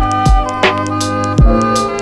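Background music with a steady beat: low kick-drum thumps and sharp drum hits under sustained chords.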